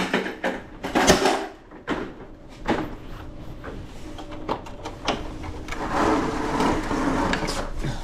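Hard objects being handled: two loud knocks, one at the start and one about a second in, a few lighter clacks, then a longer scraping rumble about six seconds in as something stuck is dragged loose.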